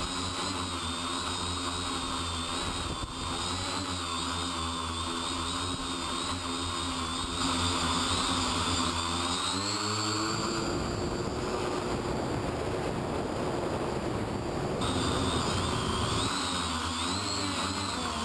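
X525 quadcopter's motors and propellers, heard from the onboard camera: a steady whine whose pitch wavers up and down as the throttle changes. From about ten to sixteen seconds in, the even tones give way to a rougher rushing sound.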